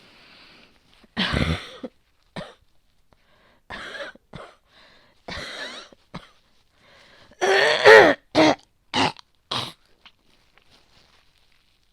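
A woman's coughing fit: about eight separate coughs and throat-clearings, the loudest a quick run of coughs in the second half. A chesty cough with heavy phlegm from a respiratory infection (cold, asthma or bronchitis).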